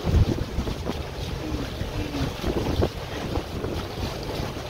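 Wind noise rumbling on the microphone over the rush of water along the hull of a sailing catamaran under way.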